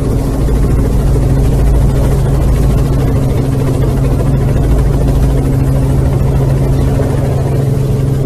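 Steady, loud drone of a helicopter's engine and rotor with rushing wind, heard from on board as it flies low beside a speeding motor yacht.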